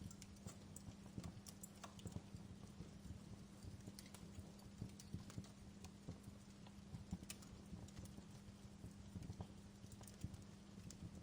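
Wood fire crackling in a fireplace: faint, irregular pops and snaps, several a second at uneven spacing, over a soft steady low hum.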